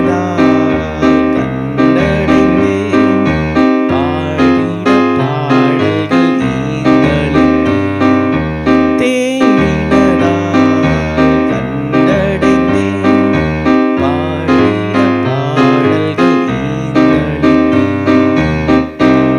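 Casio electronic keyboard playing a song passage with a steady pulse: sustained chords over a stepping bass line. The last chord dies away near the end.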